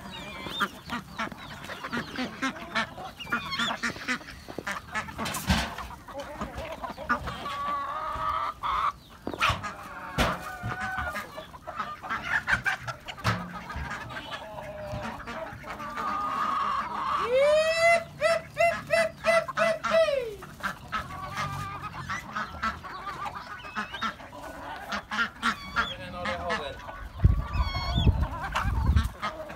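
Mixed flock of chickens, ducks and guinea fowl clucking and calling while feeding, with many sharp clicks. About two-thirds through, one bird gives a quick run of about seven short honking calls.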